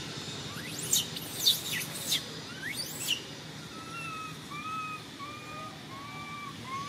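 Forest birds calling: several quick, sharp high chirps that sweep steeply down in pitch over the first three seconds. Then comes a run of about six short, evenly spaced whistled notes.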